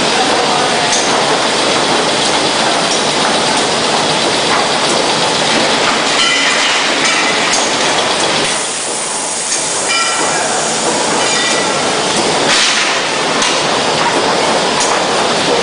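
CY 900 creasing and cutting machine running with its wooden die drum turning: a loud, steady mechanical clatter.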